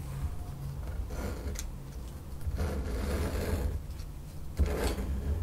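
Craft knife blade cutting through paper glued onto a styrofoam sheet: a few uneven scraping strokes.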